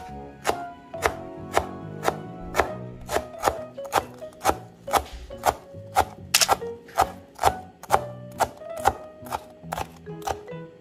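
Chef's knife chopping fresh dill on a cutting board: a steady run of sharp knocks, two to three a second, with background music underneath.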